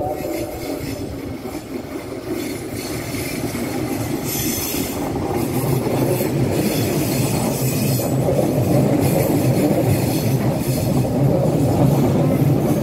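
Electric commuter multiple-unit trains running on the tracks: steady rumble of wheels on rail, with high wheel squeals and a growing, louder rolling noise in the second half.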